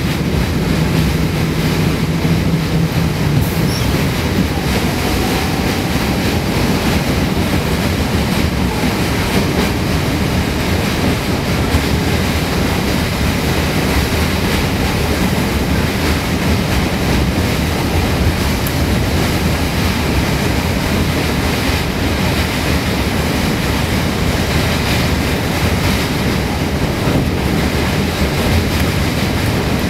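Passenger train running at a steady speed over a steel truss bridge, heard from inside the carriage as a loud, even rumble and rattle. A low hum fades out a few seconds in.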